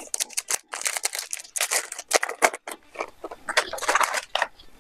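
Foil wrapper of an Upper Deck hockey card pack crinkling and tearing as it is opened by hand, with cards being handled as they are pulled out, in a run of short crackly bursts.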